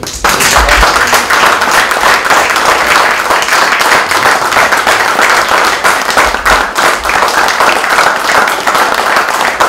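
An audience applauding: loud, dense clapping from many hands that starts suddenly and holds steady.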